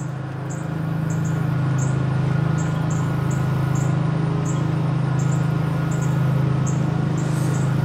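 A steady low hum, with short high-pitched chirps repeating irregularly about twice a second over it.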